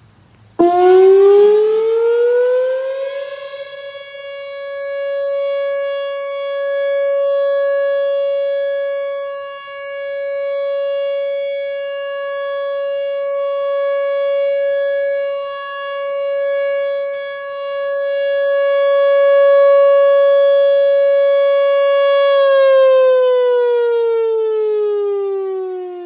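Whelen WPS-4004 rotating electronic outdoor warning siren sounding a steady alert tone on test. Its pitch winds up to a steady 560 Hz tone over about three seconds and holds, swelling and fading in loudness as the horn turns. Near the end it falls away in pitch.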